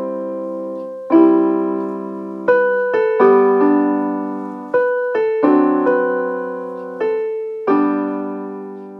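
Solo digital piano played slowly, with chords and melody notes struck every half-second to a second and left to ring and fade.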